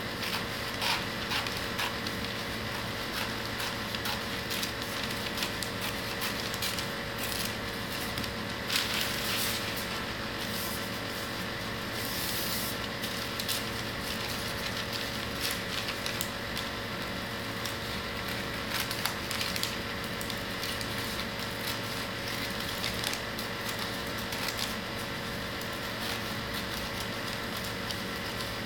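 Paper being cut with scissors and then folded and handled: rustling and crinkling with short snips, over a steady hum.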